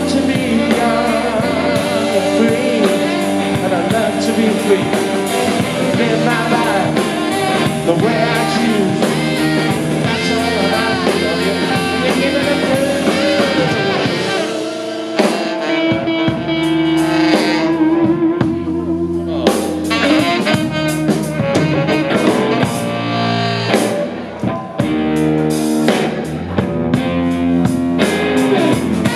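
Live rock band playing an instrumental break with saxophone, electric guitar, electric bass and drums. About halfway through, the drums drop back while a long note is held, then the full band comes back in.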